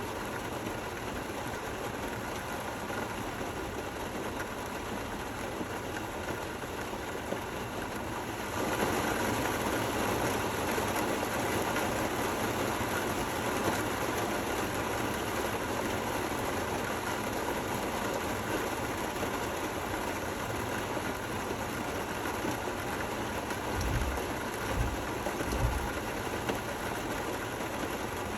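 Steady rain falling, an even hiss that grows louder and fuller about a third of the way in. A few low, dull thumps come near the end.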